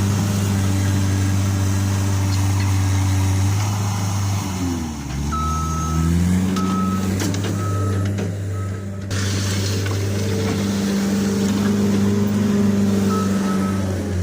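Case SR130 skid steer loader's diesel engine running under load, its pitch dipping and recovering with the work. Its reversing alarm sounds a run of short, even beeps around the middle and again near the end.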